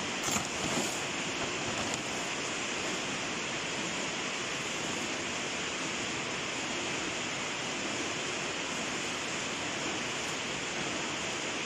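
Steady, even noise of screw-factory machinery, with a couple of brief knocks about half a second in.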